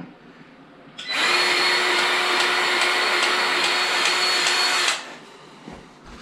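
Cordless electric grease gun motor running steadily for about four seconds, pumping grease into a snowmobile rear-suspension grease fitting. It starts about a second in and stops abruptly about five seconds in.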